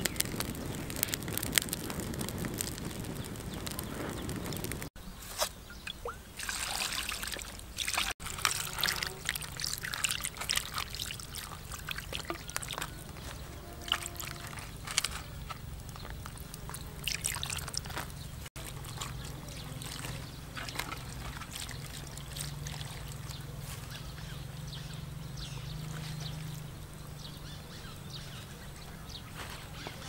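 Wood fire crackling for the first few seconds. Then scattered soft clicks and rustles of a raw plucked duck being handled on a leaf, over a steady low hum.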